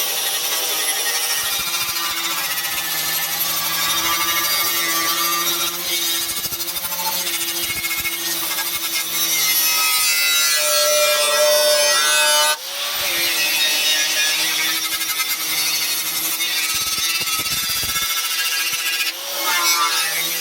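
A power tool running steadily under load, with a motor whine beneath a harsh grinding noise. It breaks off briefly about twelve and a half seconds in and then carries on.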